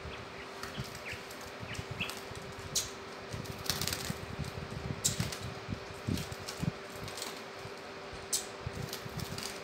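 A quail fluttering and scuffling as it is handled and released, its wings rustling against cloth in short scattered bursts, the loudest about four seconds in. A steady low hum runs underneath.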